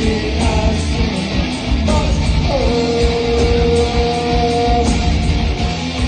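Live rock band playing: electric guitars, bass and drums, with a singer. About two and a half seconds in, a long held note slides down and then holds steady for a couple of seconds.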